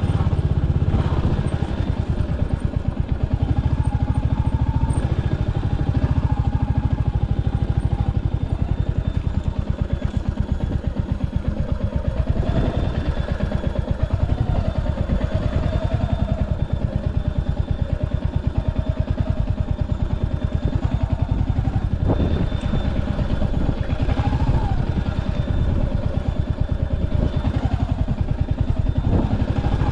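Royal Enfield Hunter 350's single-cylinder engine running with a fast, even exhaust beat, its pitch rising and falling a little about halfway through.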